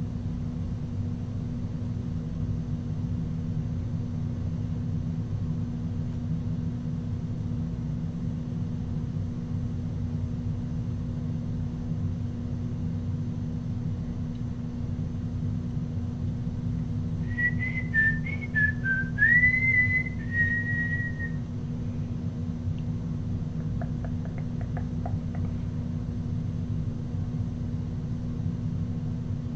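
A person whistles a short wavering tune for about four seconds, a little past halfway through, over a steady low hum.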